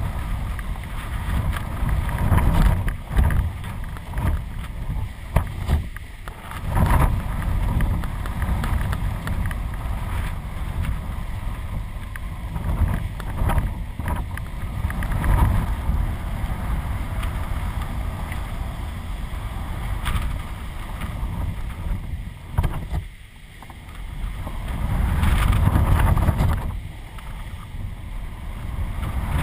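Strong gusty wind buffeting the microphone of a camera flying on a kite, a heavy low rumble that swells and eases with the gusts and drops away briefly about two-thirds of the way through.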